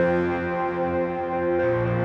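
Background music: sustained, layered chords, with the bass moving to a new note about one and a half seconds in.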